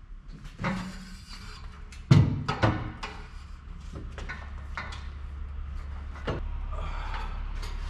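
A 3-inch exhaust pipe with a large muffler knocking and clanking against the car's underside as it is lifted and worked into place. There is a heavy thud about two seconds in, a second knock just after it, and scattered lighter knocks.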